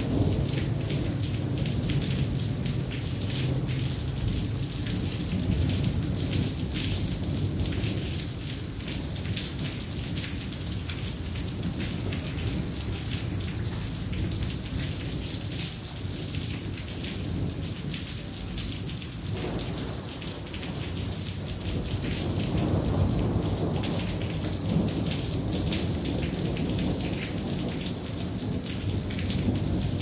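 Heavy rain falling in a steady patter, with thunder rumbling low underneath. The rumble swells louder about two-thirds of the way through.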